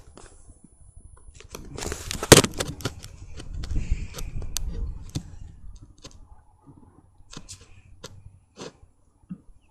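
Benjamin pump-up pellet rifle firing once: a single sharp crack a little over two seconds in, followed by a low rumble and scattered small handling clicks.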